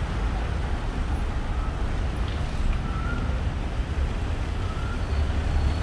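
Busy road traffic: a steady mix of engines and tyres, with a heavy low rumble.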